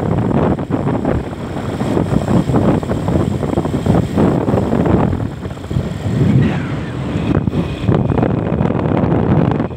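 Wind buffeting the microphone on a moving vehicle, over the vehicle's engine and road noise. The gusting noise rises and falls unevenly.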